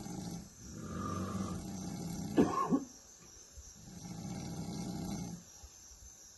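A person snoring in slow, regular breaths, about one every three seconds, with a brief louder sound about two and a half seconds in.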